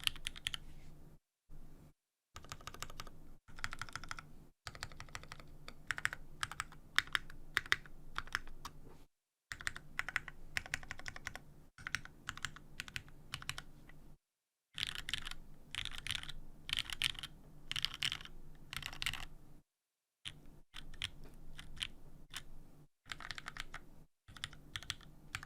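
Typing on a custom mechanical keyboard with Cherry MX Black linear switches in a full aluminium plate and GMK keycaps, with no dampening. Fast runs of keystrokes come in stretches of a few seconds, with short pauses between them.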